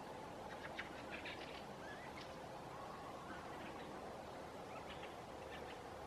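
Fieldfares calling: several short, scattered bursts of dry, chattering chack calls.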